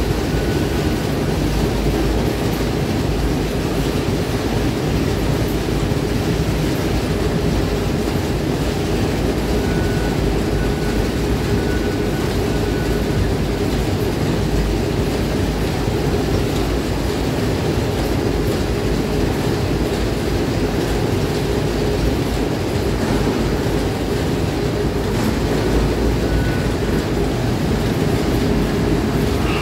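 Newtec Celox potato grading line running with fingerling potatoes, its conveyors and elevators carrying the potatoes: a steady, low machinery noise that holds constant throughout.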